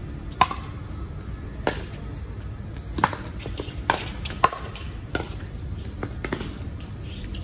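Pickleball rally: paddles striking a plastic pickleball, a string of sharp hollow pocks, some about a second apart and some in quick succession, about seven in all.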